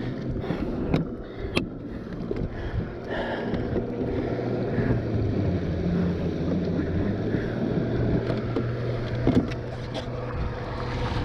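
A small boat motor running steadily, its hum shifting slightly in pitch partway through, over water noise, with a few sharp knocks near the start and once near the end.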